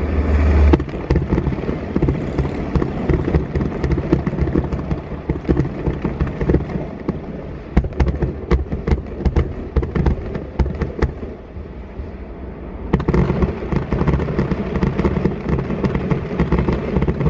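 Fireworks display: a deep boom right at the start, then rapid pops and bangs in dense clusters. They ease off for about a second around two-thirds of the way in, then a fresh burst of bangs follows.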